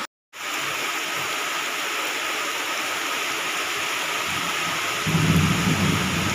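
Heavy rain pouring steadily onto wet ground and puddles. About five seconds in, a low rumble of thunder rises beneath it.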